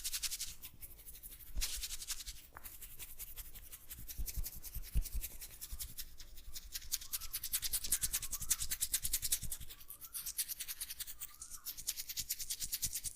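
Hands rubbing quickly through oiled hair and over the scalp in a head massage, an even, fast scratching rhythm of several strokes a second. A few soft low thumps come in the first half.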